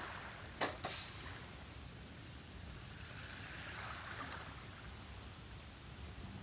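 Two quick knocks about half a second in, as the wooden sticks clamping a steak strike the disposable charcoal grill. Faint steady hiss of outdoor ambience throughout.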